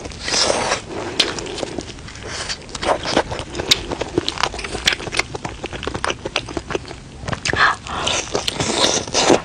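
Close-up eating sounds: biting into and chewing a Sichuan peppercorn chicken leg, with irregular clicks and smacks.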